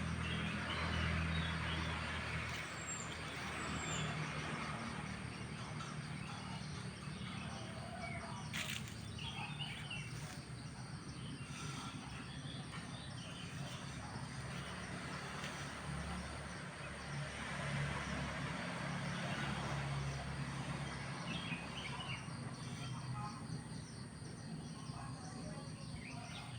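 Steady outdoor background noise with a low hum and a few faint high chirps, and one sharp click about eight and a half seconds in.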